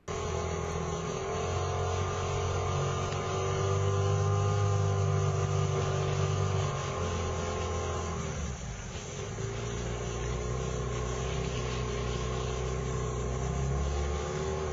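Boat motor running steadily under way, its pitch wavering a little, with a brief dip about eight and a half seconds in before it carries on.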